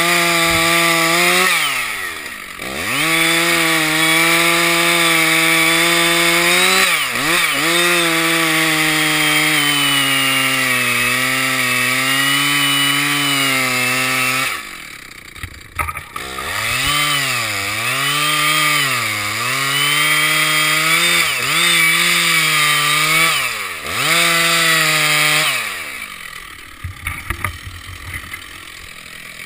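Petrol chainsaw cutting through a pine trunk at high revs, its pitch sagging as the chain bites into the wood. About halfway it drops back briefly, then cuts again with the revs wavering, and falls to idle near the end.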